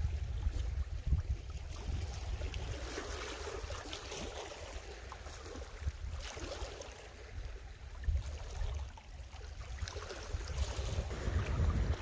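Wind gusting on the microphone over small Baltic waves lapping and washing among pebbles on the shore.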